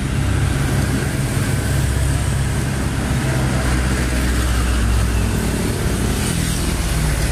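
A vehicle engine running steadily while moving, with rushing wind and road noise over it.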